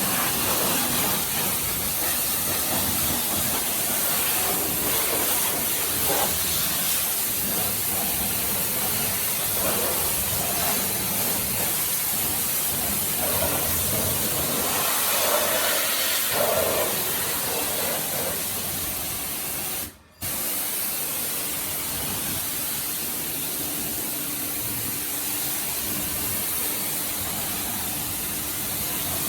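3600 PSI high-pressure washer running and spraying a water jet: a steady hiss. The sound cuts out briefly about twenty seconds in, and a low steady hum is heard under the spray after that.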